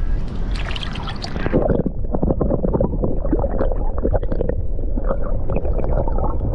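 Water splashing at the surface, then the muffled sound of river water heard from a submerged camera: swishing and gurgling with bubbles. The higher sounds drop away about two seconds in as the camera goes under.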